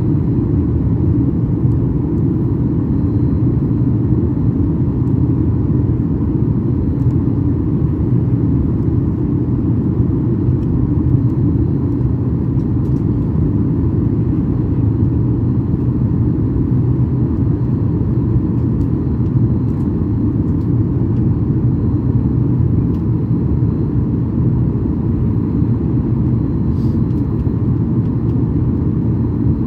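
Steady low rumble inside the cabin of a Boeing 737-800 in flight, the noise of its CFM56 jet engines and the airflow over the fuselage, heard during the descent for landing. A faint steady high whine runs over it.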